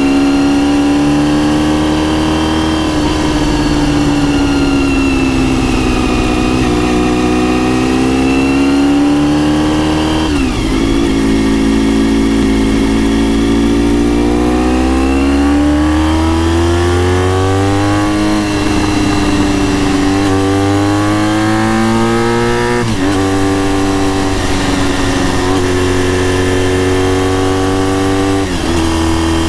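Honda RVF400 NC35's gear-driven-cam V4 engine with a TSR slip-on silencer, heard from the bike while riding. The engine note rises under throttle, then drops sharply and climbs again at each upshift: once about a third of the way in and twice near the end.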